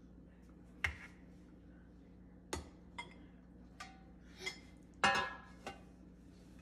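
A few separate knocks and clinks of a metal cake pan and a serving plate being handled on a kitchen counter as a cake is turned out of the pan. The loudest is a ringing clank about five seconds in.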